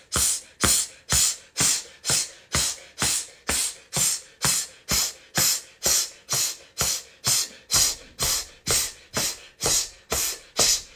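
A woman's sharp, forceful breaths out in a steady rhythm, about two a second, as part of a qigong purging exercise for the lungs.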